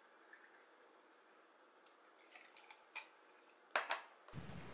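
Near silence broken by a few faint light clicks, the clearest near the end: a small shot glass being set down on the cutting board.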